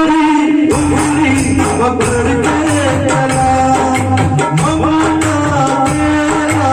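Song with a sung vocal line over percussion that keeps a steady beat, with shaker or tambourine-like rattles.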